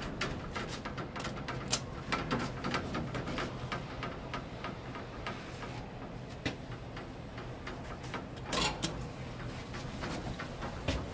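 1975 KONE inclined traction elevator running: a steady mechanical hum with many irregular clicks and ticks. A louder knock comes about eight and a half seconds in, followed by a faint high steady whine.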